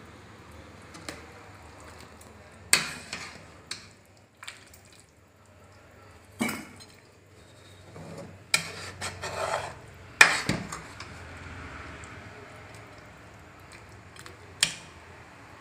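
Metal ladle stirring a thick stew in a metal pan, knocking and clinking against the pan's sides and bottom about a dozen times, with a short scrape about nine seconds in and the loudest knock about a second later.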